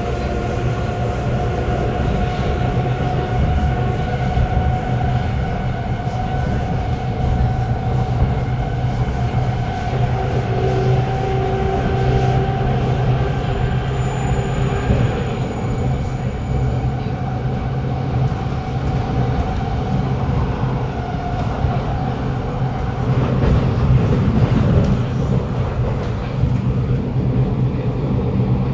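Kawasaki Nippon Sharyo C751B metro train running at speed, heard from inside the carriage: a steady rumble of wheels on rail with faint, steady whining tones over it. It grows briefly louder about three-quarters of the way through.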